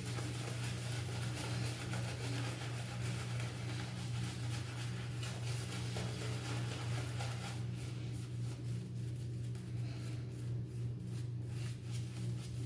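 A steady low hum throughout, with the soft swishing of a shaving brush working lather, continuous for the first several seconds and then in brief strokes.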